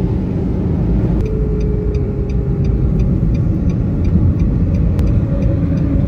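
Steady low rumble of a vehicle, with a light regular ticking about three times a second and one sharp click about five seconds in.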